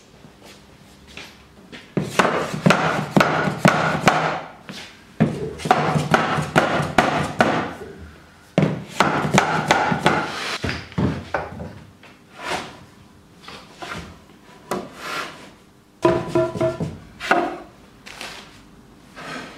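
Wooden glazing bars and sash parts of a timber window being tapped together with a rubber-headed mallet and slid into their joints: sharp wood knocks mixed with wood-on-wood scraping, in several bursts of two to three seconds with shorter, scattered knocks in between.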